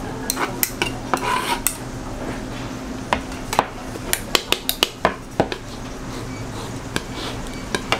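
A metal spatula scrapes and taps on a plastic cutting board as fish-cake paste is spread flat and rolled around a crab stick. There are many sharp clicks, with a quick flurry about four to five and a half seconds in, over a steady low hum.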